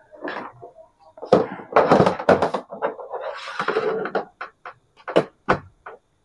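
Clattering and rustling of a power cord and plastic being handled, then several sharp clicks and knocks near the end as the mains plug is pushed into the power socket on the back of an LED TV.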